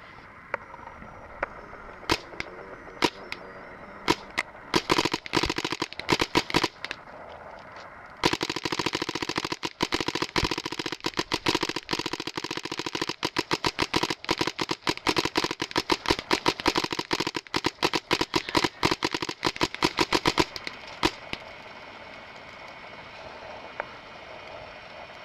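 Paintball marker firing: a few separate shots, then from about eight seconds in a long run of rapid shots lasting some twelve seconds, then two or three more single shots.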